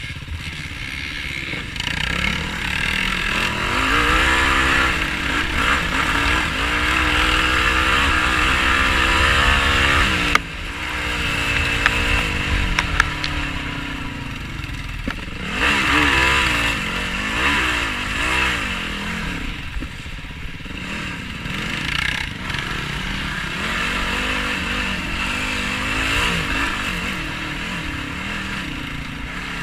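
Yamaha YFZ450R sport quad's single-cylinder four-stroke engine revving up and down off-road, its pitch climbing and falling again and again, over a steady hiss. The engine note drops off sharply about ten seconds in, then picks up again.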